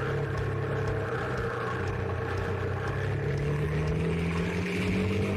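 SWM Six Days 440's 445 cc single-cylinder engine running as the bike rides along, its pitch climbing slowly and steadily as it gathers revs.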